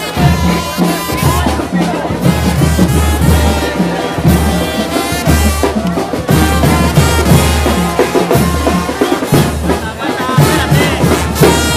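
Live brass band playing as it marches: a tuba holds a repeating bass line under trumpets and drums.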